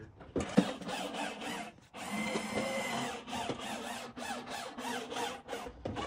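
Clattering and scraping of a hand truck carrying a heavy boxed heat pump against the edge of an aluminium utility trailer, with a short squeak about two seconds in.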